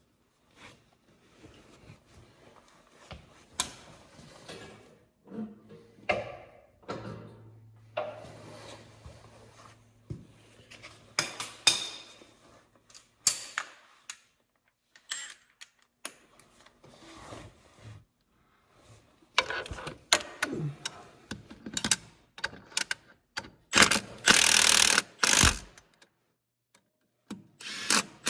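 Hand tools and metal parts clinking, knocking and scraping in irregular bursts during mechanical work on a tractor drivetrain, with a louder rasping stretch near the end.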